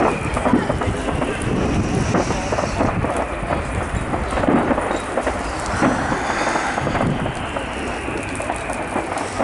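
Fireworks display: many aerial shells bursting and crackling in quick succession, a continuous rattle of pops over a low rumble.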